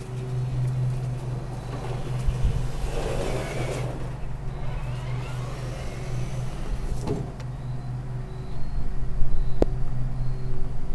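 Traxxas K5 Blazer RC crawler's electric motor and gears whining as it drives, with a swell of noise and rising pitch a few seconds in and a few sharp clicks later on.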